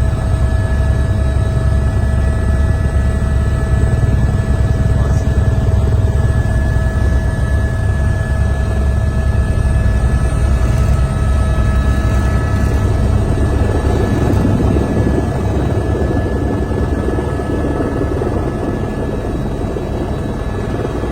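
Helicopter running steadily, with the fast low beat of its rotor and a steady turbine whine.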